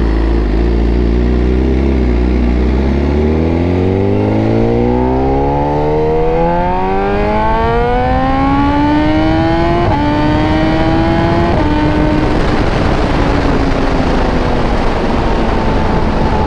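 BMW S1000RR's inline-four engine pulling away from a standstill and accelerating, its note climbing steadily for most of the time, with two quick gear changes about two-thirds of the way through, then settling into a slowly falling cruise note. Wind rush grows as the speed rises.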